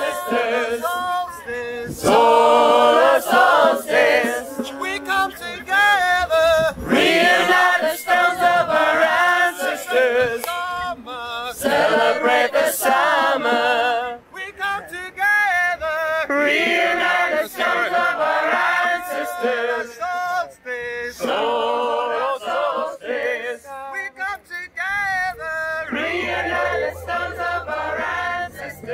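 A crowd of men and women chanting together, phrase after phrase with short breaks between them. A low droning tone comes in near the end.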